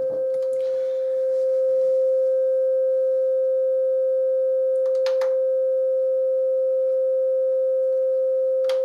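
Steady sine-wave test tone from an audio oscillator, sounding through the Sony STR-DE-475 amplifier's speaker output at one unchanging mid pitch. Two brief clicks, about five seconds in and near the end.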